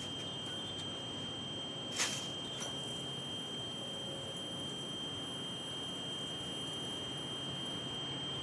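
Yo-yo play: one sharp click about two seconds in, as the yo-yo snaps back or strikes, over a steady high-pitched whine that lasts throughout.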